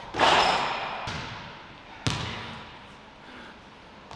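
A basketball hits the backboard with a loud bang that echoes through the gym hall. About two seconds in, it bounces once on the hardwood floor.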